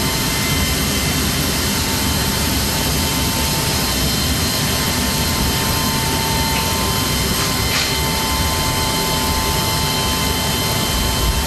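Steady whine and rush of a C-17 Globemaster III's jet turbine running on the ground, holding an even level and pitch throughout. A faint click sounds about eight seconds in.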